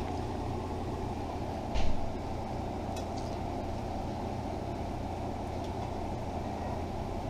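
A metal spoon scraping and knocking in an aluminium pot while scooping the liquid off cooked bay scallops. There is one louder knock about two seconds in and faint clinks a second later, over a steady low hum.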